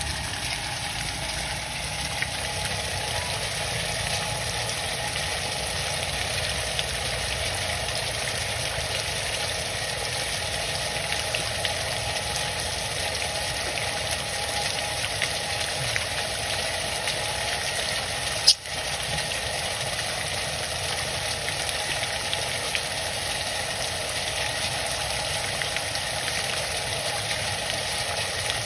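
Heavy rain pouring steadily onto dry leaves and puddled ground, with one sharp click about two-thirds of the way through.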